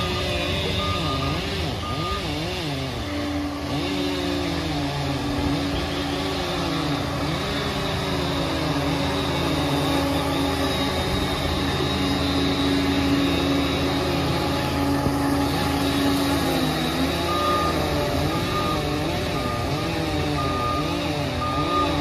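Liebherr PR 746 crawler dozer's diesel engine working under load as it pushes earth, its pitch rising and falling, with a steady whine through the middle. Its reversing alarm beeps steadily in the first two seconds and again over the last few seconds as it backs down.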